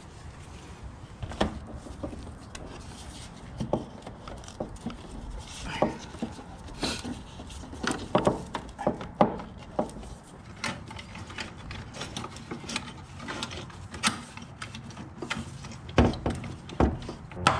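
Irregular knocks, clicks and rubbing of a brake booster and nearby hoses being handled and worked into place.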